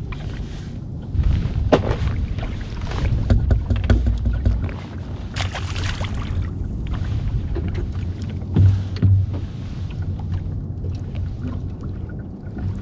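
A small skiff drifting at sea: water slapping against the hull, wind buffeting the microphone with a low rumble, and a few scattered knocks on the boat.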